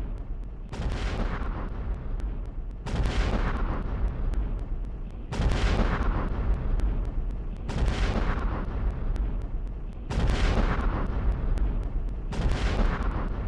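Gunshots played back slowed down: six deep booms, evenly spaced about two and a half seconds apart, each with a sharp start and a long rumbling fade.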